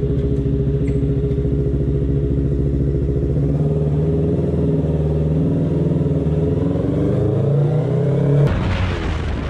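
Sport motorcycle engine running at a steady idle just after starting. From about a third of the way in, its pitch climbs slowly as the bike pulls away at low speed. Near the end the engine sound cuts off abruptly and a different, noisier sound takes over.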